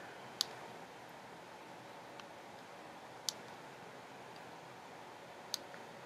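Sharp clicks of the buttons and control wheel on the back of a Sony a6000 camera being pressed: three clear clicks two to three seconds apart, with two fainter ticks between, over a faint steady hiss.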